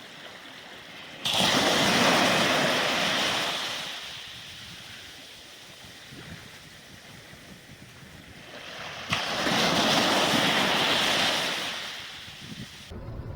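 Sea waves surging and washing, twice: each surge comes in suddenly, lasts about three seconds and fades away.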